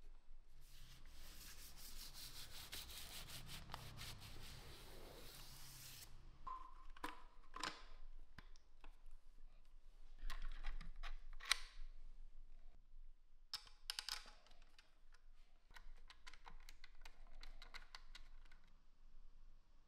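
Workshop handling noises: a steady rubbing for about five seconds, then scattered sharp clicks and light knocks.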